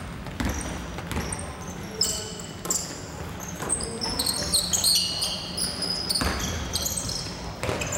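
Basketball being dribbled on an indoor court, with its bounces knocking, and a flurry of short, high-pitched sneaker squeaks on the floor, thickest around the middle.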